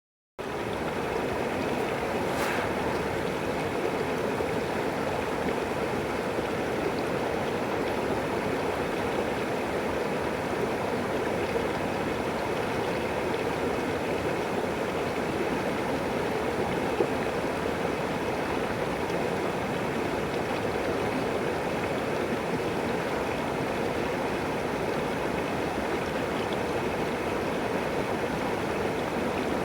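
River water flowing: a steady rushing babble of a stream with no let-up.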